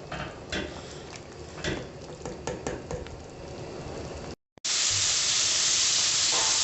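Light clinks and scrapes of a utensil in a pan over a low sizzle. After a brief break, a loud, steady sizzle of food frying in hot oil follows.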